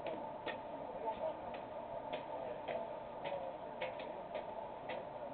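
Faint regular ticking, about two clicks a second, over a low murmur of distant voices.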